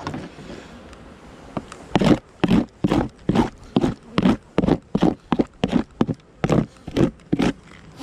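Metal hive tool scraping a propolis-covered wooden hive cover in a quick series of short strokes, about two or three a second, starting about two seconds in.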